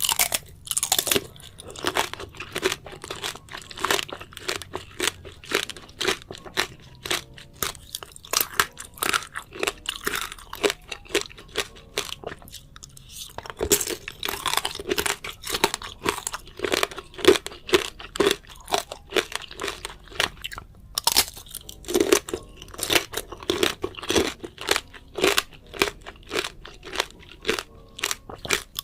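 Close-up chewing of crunchy fresh fruit: quick, irregular wet crunches as it is bitten and chewed, with short pauses about 13 and 21 seconds in.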